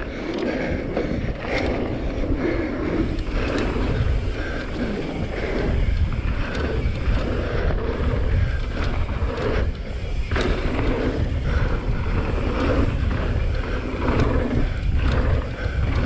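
Revel Rail 27.5 mountain bike riding fast down a dirt trail, tyres rolling over the ground with scattered knocks and rattles from the bike over bumps. Wind rumbles steadily on the camera's microphone.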